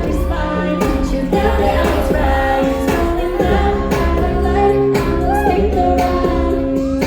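K-pop song performed at a concert: a woman singing over a pop backing track with a heavy bass line and a steady beat, played loud through the venue's sound system.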